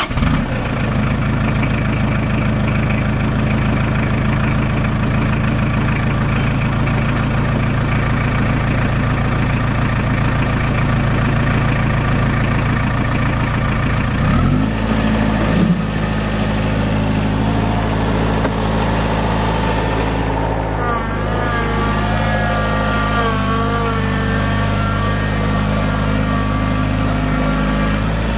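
Shibaura N844 four-cylinder diesel of a New Holland Boomer 3040 compact tractor running steadily, its note shifting about halfway through. A wavering whine joins it in the later part.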